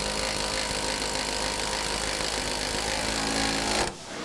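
Power drill spinning a socket extension to drive a bolt into a van lock mount. It runs steadily and stops about four seconds in.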